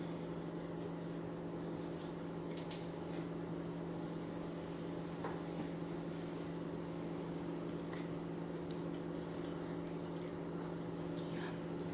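Microwave oven running with a steady hum while it cooks rice, with a few faint taps of a ceramic knife on a cutting board as raw chicken breast is sliced.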